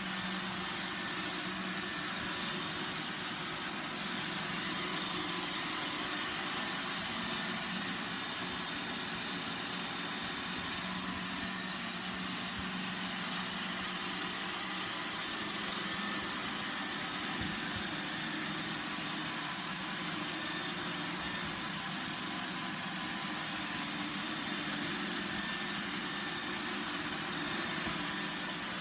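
Roomba 960 robot vacuum running with a steady motor whir.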